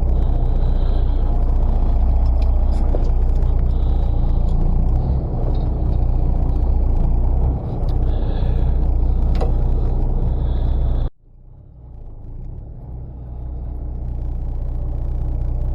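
Fishing boat's engine running, a steady low rumble. About eleven seconds in it cuts off suddenly, then builds back up over the next few seconds.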